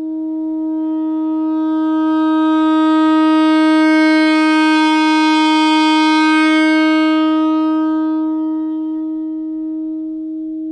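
Tenor saxophone holding one long, steady note as a long-tone exercise. The note swells louder and brighter to a peak about four seconds in, then slowly softens again.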